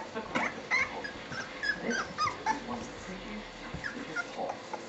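A litter of three-week-old Staffordshire bull terrier puppies whimpering and squeaking: many short, high calls, some sliding up or down in pitch, overlapping one another.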